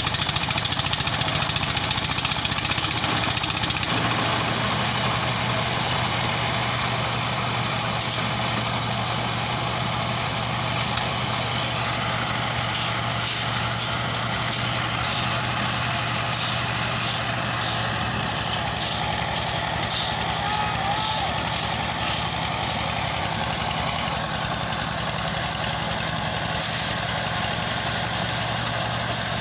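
A heavy engine running steadily at a constant speed, with sharp clicks and rattles coming in from about halfway through.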